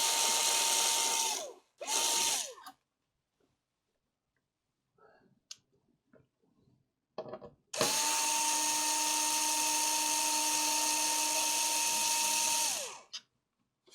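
Small high-speed electric motor tool at a repair bench, running with a steady whine and hiss. It stops about a second in, runs briefly once more, then runs again for about five seconds from roughly halfway, its pitch falling as it winds down.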